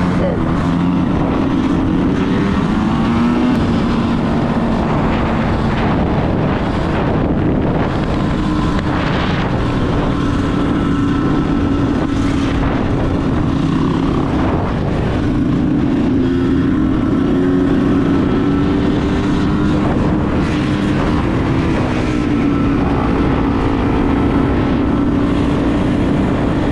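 Dirt bike engine running while riding, its pitch holding fairly steady with small rises and falls, with wind noise on the microphone.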